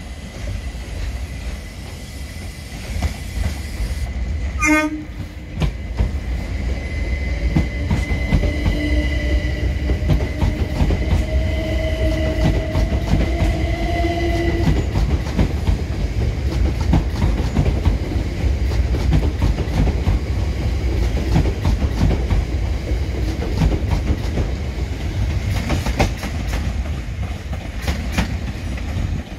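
Gatwick Express Class 387 electric multiple unit pulling away and running past close by, with a steady low rumble of wheels on rail. Its traction motors give a whine that rises slowly as it accelerates, then fades. A short horn toot comes about five seconds in.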